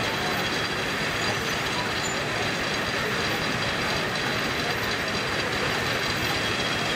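Steam-powered sawmill running steadily: a dense, even mechanical noise from the engine, belts and mill machinery, with some steam hiss.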